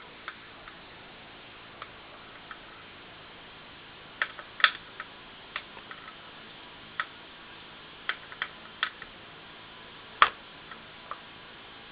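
Irregular small clicks and taps from handling hard disk drive parts, scattered and uneven, with two louder clicks about five and ten seconds in.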